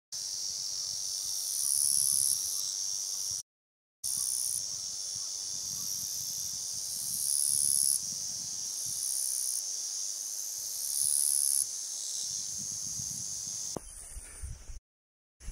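Summer insect chorus, a steady high-pitched shrill with louder, higher buzzing swells every three to four seconds; it cuts out briefly twice. Near the end it gives way to footsteps on a grassy path.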